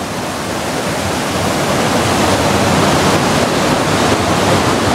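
Mountain river rushing over rocks in white-water rapids and a small cascade, swollen after heavy rain. It is a steady, dense rushing that grows somewhat louder over the first couple of seconds.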